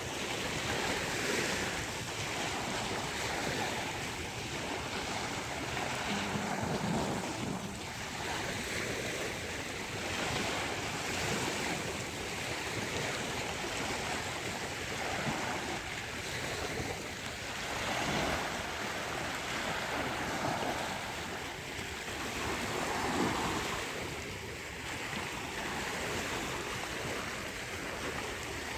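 Sea surf breaking and washing onto a beach: a continuous rush that swells and eases every few seconds, with wind buffeting the microphone.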